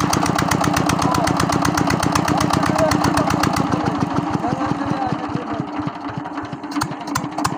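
Rebuilt 25 HP diesel engine, with a new cylinder sleeve, piston and rings, running with an even beat of about eight strokes a second. From about halfway through the beat slows and the sound fades as the engine winds down.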